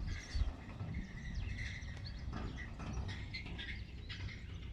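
Small birds chirping and twittering in many short calls, over a steady low rumble.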